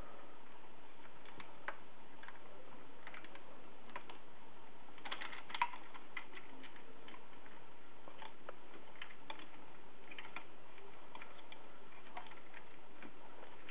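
Scattered light clicks and taps of hands handling the plastic housing and parts of a Panasonic JS-950WS point-of-sale terminal, with a short cluster of louder clicks about five seconds in, over a steady hiss.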